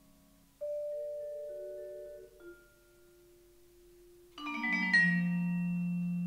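Solo vibraphone played with mallets: a slow descending line of single notes left ringing, then about four seconds in a quick cascade of bright struck notes that settles into a sustained low chord, fading slowly.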